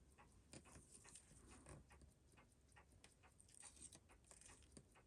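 Near silence with faint, irregular small clicks and taps of metal bench tools against a watch case while the pusher circlips and seals are being worked out.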